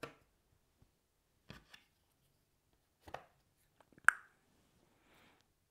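Cardboard jigsaw pieces being picked up and set down on a wooden tabletop: a few scattered light taps and clicks, the sharpest about four seconds in, then a soft brief rustle near the end.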